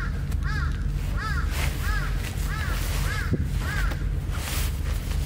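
A crow cawing, a run of about seven evenly spaced calls that stop a little under four seconds in, over a steady low rumble.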